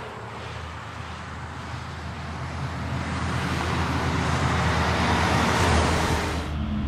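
Road noise inside a moving passenger van on a highway: a steady low engine and tyre rumble with a hiss that swells over several seconds, then cuts off sharply near the end.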